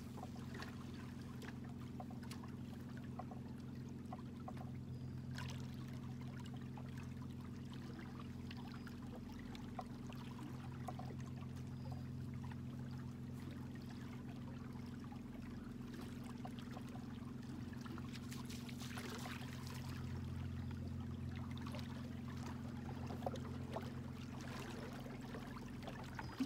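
Bow-mounted electric trolling motor running with a steady low hum, with faint water sounds around the hull; the hum cuts off at the very end.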